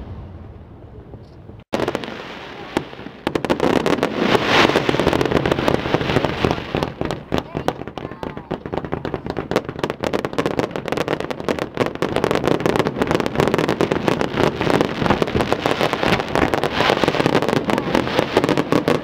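Fireworks display: a dense, rapid crackling of many small bursts, starting about three seconds in and running on thickly.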